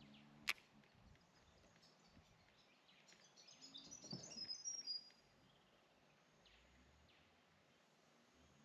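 Near-quiet outdoor background with a songbird singing a quick run of high notes that step downward, about three to five seconds in. A single sharp click comes just after the start.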